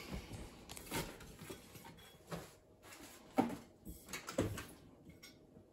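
Faint scattered knocks and clicks of a kitchen range's oven door being taken by its handle and pulled open, the loudest knock a little past halfway.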